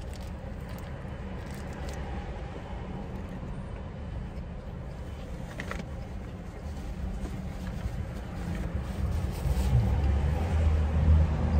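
Steady low rumble inside a car's cabin, swelling over the last few seconds, with a few faint crinkles of a wax paper burger wrapper.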